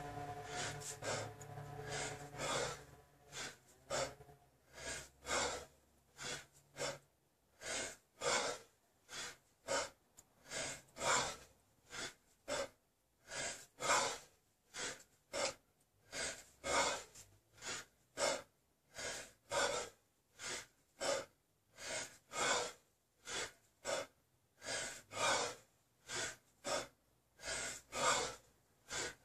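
A man breathing hard and rhythmically through a set of kettlebell snatches, a sharp forceful breath more than once a second, in time with the swings: heavy exertion deep into a long set.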